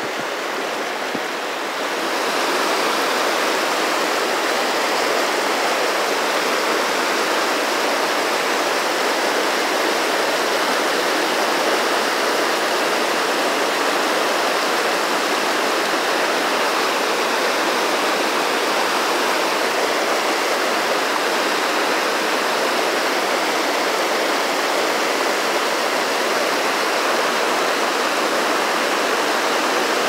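Fast, shallow river current rushing over rocks in a riffle: a steady, even rush of water, a little louder from about two seconds in.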